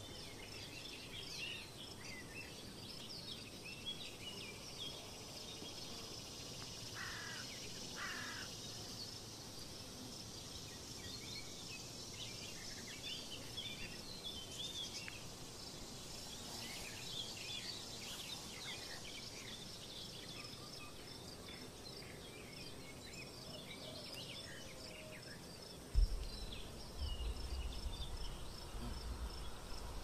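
Forest ambience with small birds chirping and twittering on and off, many short high calls. Near the end there is a sudden low thump, then a low rumbling.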